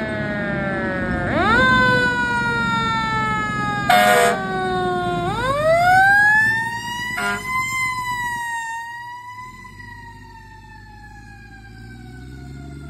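Fire engine's Federal Q2B mechanical siren winding up and down, rising twice, with a short air horn blast about four seconds in. The siren then winds slowly down and fades as the truck pulls away, with the truck's engine rumbling beneath.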